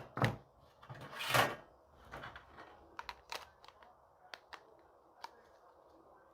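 Hard drives being handled and fitted into a computer case's drive bays: a couple of knocks in the first second and a half, then a run of small sharp clicks.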